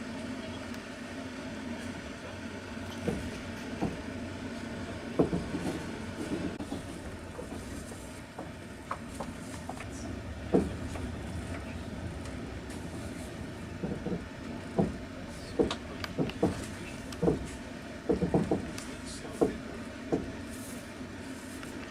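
Passenger train carriage heard from inside while running: a steady rumble with the wheels knocking over rail joints, the knocks coming irregularly and more often in the second half.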